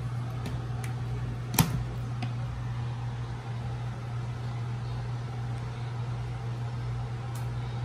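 A steady low hum throughout, with one sharp click about one and a half seconds in and a few faint ticks near it.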